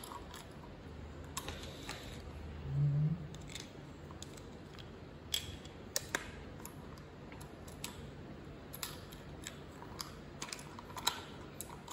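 Small plastic clicks and taps as the parts of a Milton thermos flask lid are handled and pushed together by hand, scattered irregularly, with a brief low hum about three seconds in; the inner lock piece has not yet snapped home.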